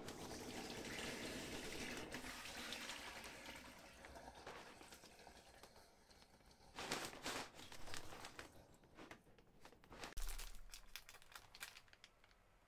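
Water pouring out of a black plastic bin bag of soaked straw into a stainless steel sink, trailing off over several seconds as the bag drains. Then the plastic bag crinkles in short bursts as it is handled, twice.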